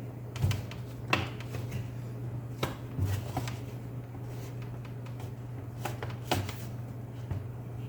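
Scattered sharp plastic clicks and taps, about eight of them, as an Asus X541UA laptop's keyboard deck is pressed down and its clips snap into place, over a steady low hum.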